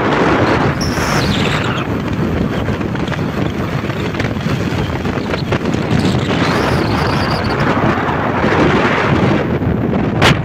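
Strong wind buffeting the microphone, a loud, steady rumbling rush. A sharp click near the end.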